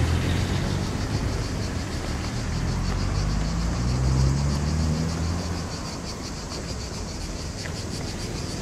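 A car passing, its engine note rising and then fading away about two-thirds of the way through. Cicadas buzz steadily in a fast pulsing rhythm throughout.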